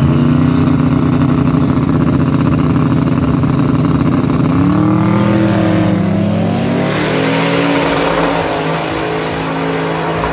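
Drag car's engine held at steady high revs for about four seconds, then climbing in pitch as the car accelerates hard. A broad rushing noise takes over from about seven seconds in.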